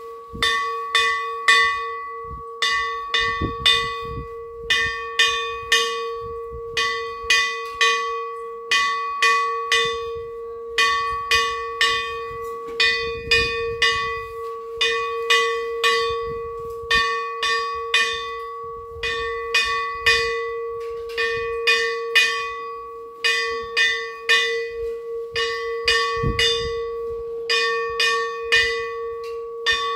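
Large hanging metal temple bell rung over and over. The clapper strikes in quick runs of several blows about every two seconds, over a steady ringing hum.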